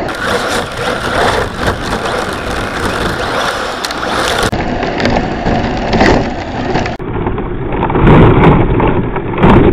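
Onboard sound of a fast RC car running over icy, gravelly snow: rough tyre and chassis noise with scattered knocks. About eight seconds in the car rolls over and the noise turns louder and heavier, with tumbling knocks.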